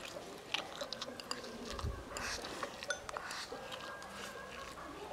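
Child eating from a porcelain bowl with wooden chopsticks: scattered light clicks of the chopsticks against the bowl and soft chewing.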